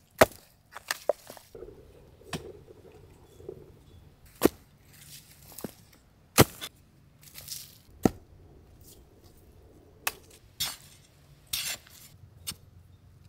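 A series of about a dozen sharp knocks and cracks at irregular intervals, with scraping and rustling between them.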